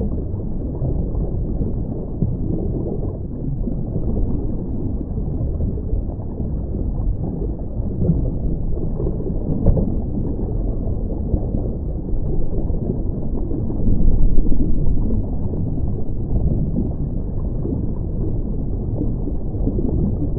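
Muffled underwater noise picked up by an underwater camera: a steady low rumble and wash with no highs, swelling louder for about a second two-thirds of the way through.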